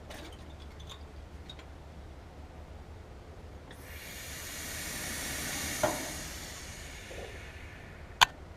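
A hiss of pressurized gas escaping, starting suddenly about four seconds in and tapering off over a few seconds, over a steady low hum. A sharp click near the end.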